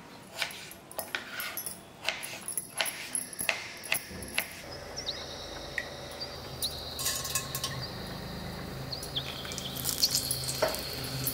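Light knocks of peeled potatoes being set down on a wooden board. About four seconds in, these give way to hot oil in a cast-iron skillet sizzling steadily with small pops, as dried red chillies and dal are tempered in it.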